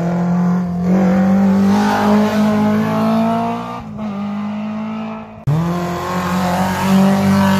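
Historic rally car engines driven hard, revs climbing as the cars accelerate along the stage. The engine sound breaks off sharply about five and a half seconds in and picks straight up again.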